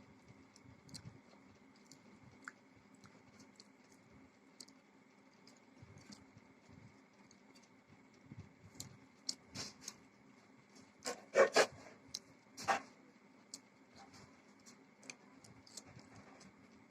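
Close-up eating sounds: soft chewing and small mouth clicks while eating rice and fried fish, with a few louder, sharp crunchy clicks around two thirds of the way in, over a faint steady hum.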